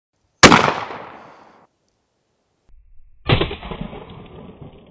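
A 12 gauge shotgun blast fired into a lithium iron phosphate battery, cut off abruptly about a second later. A second blast about three seconds in, heard from close to the target, decays with small ticks trailing after it.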